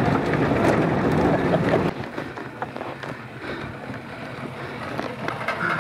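Off-road vehicle driving, its engine and road noise mixed with wind buffeting the microphone; the sound drops sharply in loudness about two seconds in and goes on quieter with scattered clicks and knocks.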